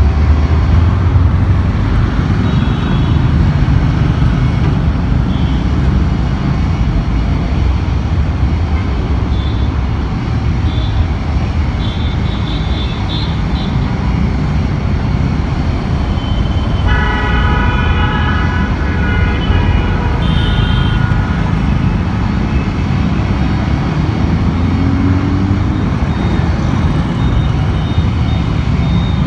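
Road traffic at a busy city intersection: cars and motorcycles passing with a steady engine and tyre rumble, and scattered short horn toots. Past the middle one horn is held for about four seconds.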